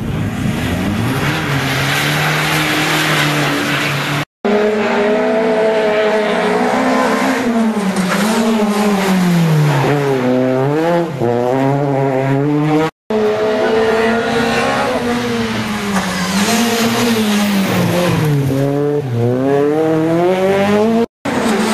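Rally cars driven flat out through a tight hairpin, one after another: each engine revs hard, falls in pitch as the driver lifts and brakes for the bend, then climbs again through the gears on the way out, with tyre squeal as the cars slide. The sound drops out briefly three times where one car's pass is cut to the next.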